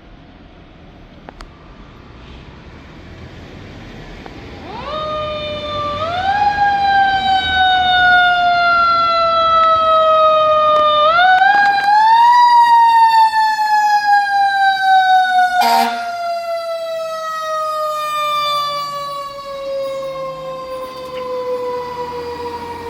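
Fire engine siren wailing. It winds up quickly, sags slowly, is wound up again twice, then falls away in pitch for a long time, loud at its peak. A short sharp burst cuts in partway through.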